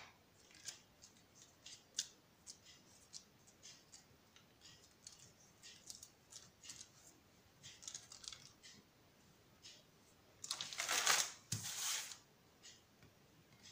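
Faint crackling and small ticks of baking parchment and soft dough being handled as a thin dough strip is rolled up by hand. About ten and a half seconds in comes a louder rustle of the parchment paper being slid across the counter, lasting a second or so.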